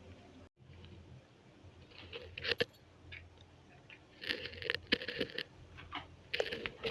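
Knife cutting through slices of bread spread with mashed potato, with short scrapes and knocks of the blade on the surface beneath, in a few separate bursts.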